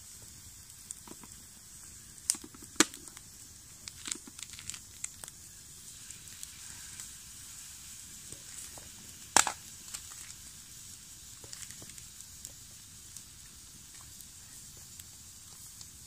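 Wood campfire crackling with a steady hiss and scattered sharp pops, the loudest about nine seconds in.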